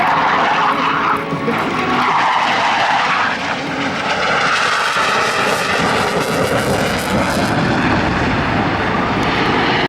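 Loud jet noise of a CF-18 Hornet's twin jet engines as the fighter flies past, a steady rush with slowly sweeping tones.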